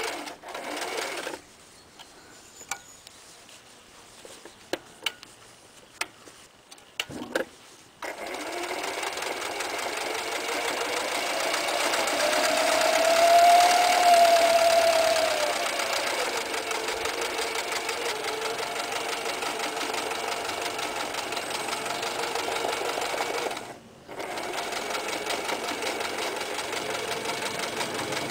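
Toyota 9060 electric sewing machine stitching through denim. It stops a second or so in, with a few clicks during the pause, then runs again from about eight seconds, speeding up to a higher whine around the middle before easing back to a steady run. It stops briefly once more about four seconds before the end.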